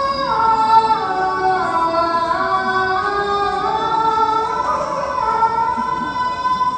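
A single high voice singing a slow, unaccompanied-sounding melody of long held notes that step down and then climb back up.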